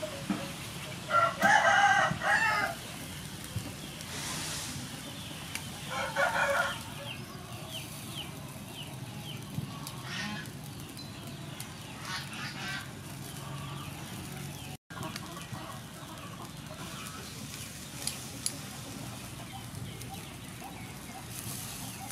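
A rooster crowing once, loudly, about a second in, then a shorter call around six seconds, over a steady low background with a few faint clicks.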